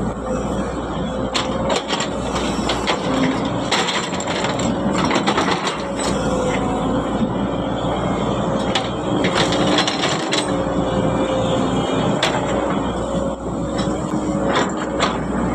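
Excavator working, its diesel engine running steadily under a run of irregular sharp knocks and cracks from digging and handling material.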